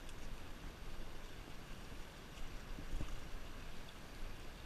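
Wind buffeting the camera microphone: a fluctuating low rumble over a steady hiss, with one soft knock about three seconds in.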